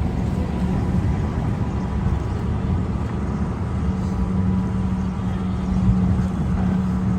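Cars driving off a car ferry, their engines and tyres running over a steady low rumble, with a low hum that grows stronger about four seconds in.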